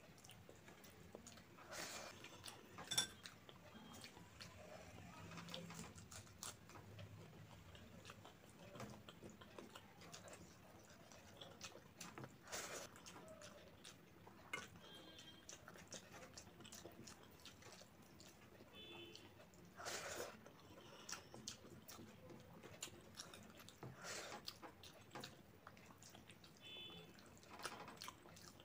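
Faint eating sounds: wet chewing and lip smacks, with soft squishing as fingers mix rice and curry, heard as scattered small clicks and a handful of louder smacks.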